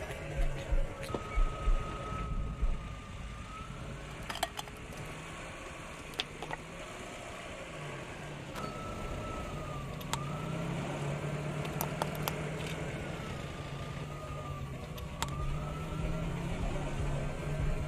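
A car engine runs steadily while a siren wails slowly up and down several times. A few sharp cracks stand out, one about four seconds in.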